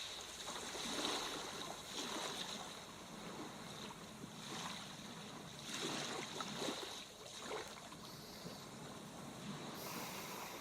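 Soft sea waves washing in, a gentle hiss of surf that swells and fades several times.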